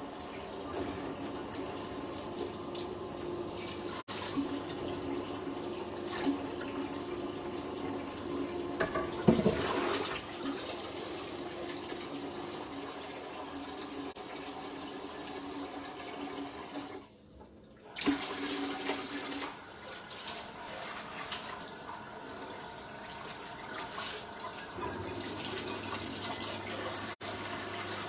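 Kitchen sink tap running while dishes are rinsed, with a few clinks and knocks of crockery, the loudest about a third of the way in. The water stops for about a second past the middle, then runs again.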